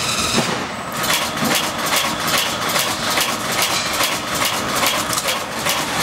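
Workshop machinery running with a rapid, even mechanical ticking clatter over a steady hum.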